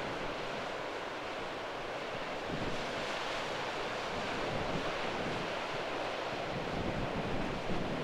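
Wind buffeting the microphone in gusts over a steady wash of breaking surf.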